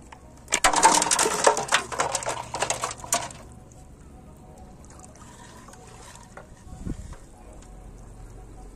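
Water and a fish spilling out of a plastic bottle trap into an aluminium basin, splashing and clattering against the metal and the other bottles for about three seconds, starting about half a second in. A single soft thump follows near seven seconds.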